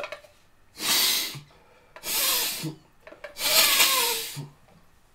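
A man breathing hard three times, each breath a loud hiss lasting under a second, in the middle of a saline nasal rinse with a neti pot.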